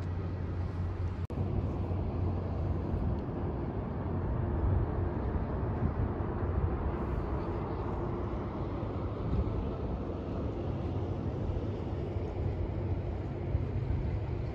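A steady low engine hum over outdoor background noise.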